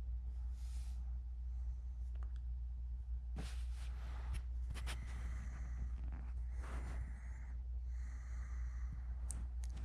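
Quiet room tone: a steady low hum with faint scattered clicks and a few soft rustles.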